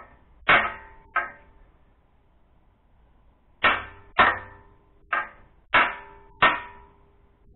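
Hammer blows on the steel exhaust pipe under a Datsun 240Z while the muffler is being taken off. Sharp metallic strikes, each ringing briefly: two close together, then after a pause of about two seconds five more at a steady pace.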